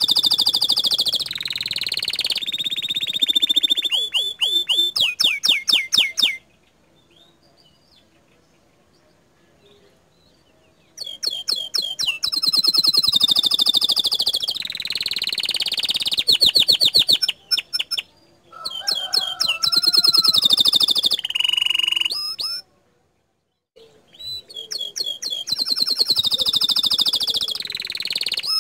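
Domestic canary singing loud, fast phrases of rapidly repeated notes and rolling trills. The song breaks off for a few seconds about a quarter of the way in, and again for about a second later on.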